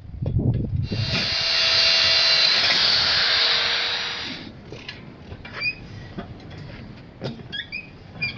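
A steady hiss lasting about three and a half seconds, followed by scattered light clicks and clinks.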